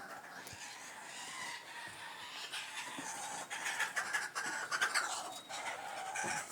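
Wild ringneck parrots and kookaburras calling, a busy mix of short calls that grows louder and thicker in the second half.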